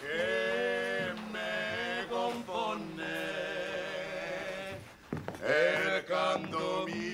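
A man singing long, drawn-out notes, with a short break about five seconds in before the next phrase.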